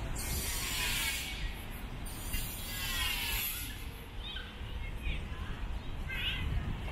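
Outdoor city ambience: a steady low rumble with two hissing swells of noise in the first four seconds, then a few short high chirps.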